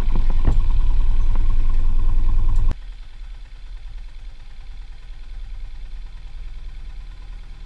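Motorcycle riding with a loud low wind rumble on the microphone. This cuts off abruptly about three seconds in, and the motorcycle's engine is then heard idling steadily and more quietly.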